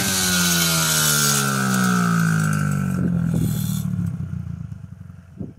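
Mini dirt bike's small engine running close by, its pitch falling steadily over about four seconds as the sound fades away.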